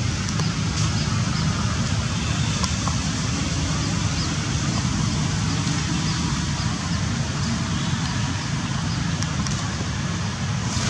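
Steady outdoor background noise: a low rumble with hiss over it, and a few faint ticks.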